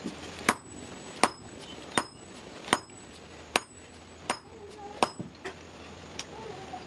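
A hand hammer forging a red-hot bar on a block anvil. The blows come at a steady pace of about one every three-quarters of a second, each with a short, high metallic ring, and a few quicker, lighter taps follow near the end.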